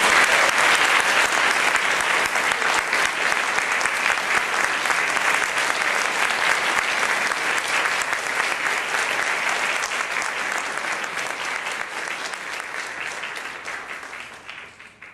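Audience applauding after a piece ends: dense, steady clapping that slowly thins and grows quieter, then dies away at the end.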